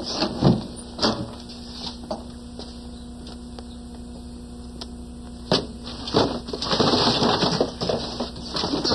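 Rummaging through a pile of junk by hand: a few knocks in the first second, a quieter stretch, then a sharp knock and a run of busy rustling and clattering in the last three seconds.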